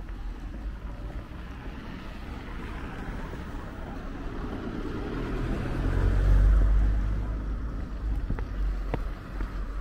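A motor vehicle driving past close by, its engine and tyre noise rising to a peak about six seconds in and then fading, over a steady street background. Two faint ticks near the end.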